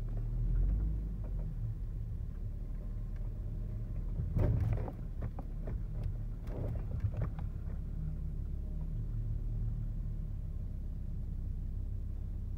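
First-generation Lexus IS300's 2JZ-GE inline-six idling steadily through a Flowmaster resonator and the stock muffler: a low, even exhaust rumble. A few short knocks and clicks come in the middle.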